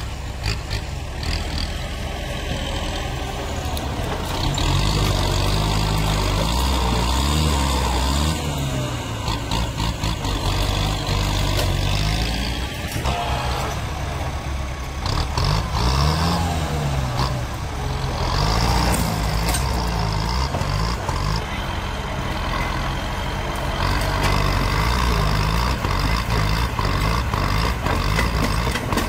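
Tractor's diesel engine running under load as its front blade pushes out a tree stump, revving up and easing off in three louder surges.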